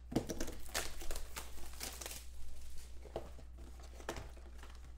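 Plastic wrap crinkling and tearing as a sealed trading card box is unwrapped, dense in the first two seconds, then a few scattered crinkles.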